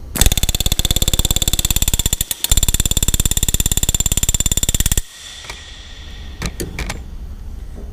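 Pneumatic rivet gun hammering a solid-shank aircraft rivet against a steel bucking bar in two rapid runs of blows, with a brief break about two and a half seconds in, stopping abruptly about five seconds in, followed by a few light knocks. The bucking bar is held crooked, so the rivet's shop head is bending over to one side instead of swelling evenly.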